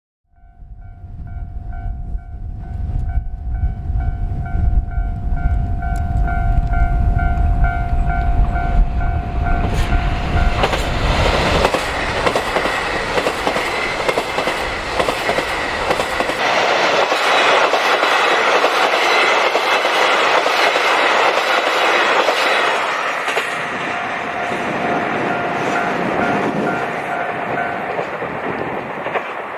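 Level-crossing alarm ringing in a steady repeating tone, with a low rumble underneath, as a diesel train approaches. About ten seconds in, the train passes over the crossing loudly for about a dozen seconds and drowns out the alarm. The alarm is heard faintly again near the end and then stops.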